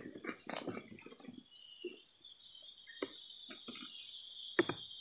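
Steady high-pitched drone of forest insects, with a few short clicks and knocks from handling a hooked baung catfish, the loudest about four and a half seconds in.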